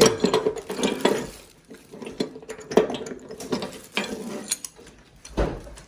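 Small metal swivel table vise being handled and turned over: scattered clicks and light metallic rattles, with a dull thump near the end.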